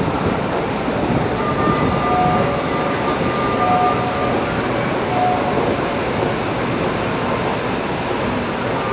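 CPTM electric commuter train running along the track: a steady rumble, with faint whining tones coming and going.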